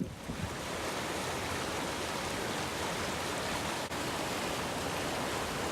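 Steady rushing noise, even and unchanging, with a brief dip about four seconds in.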